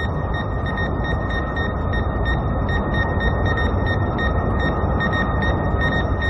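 Cartoon sci-fi sound effect: a loud, steady low rumble of spaceship engines, with high electronic beeps pulsing over it.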